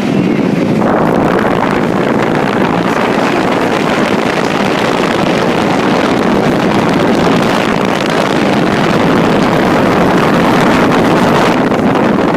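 Lennox central air conditioner condensing unit running close up, a loud, steady rushing noise of its fan and compressor, with air buffeting the microphone. The noise starts abruptly as the unit is reached.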